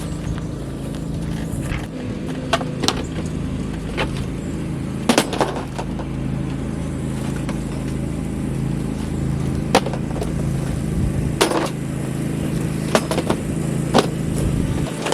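A motor runs steadily with a low hum, while sharp knocks and clatters come at irregular intervals, about a dozen in all.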